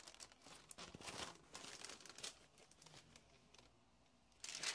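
Faint crinkling and rustling of a diamond painting canvas and its clear plastic cover film being handled, broken by a short dead silence, then louder crinkling again near the end.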